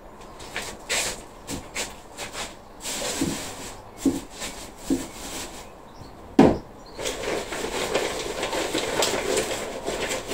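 Handling noise from potting work: scattered clicks and light knocks of pots and containers being moved, with one louder knock about six seconds in, then a stretch of rustling.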